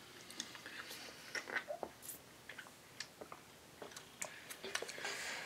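Faint chewing and small mouth clicks and smacks from a jelly bean being eaten, with sips from a water bottle.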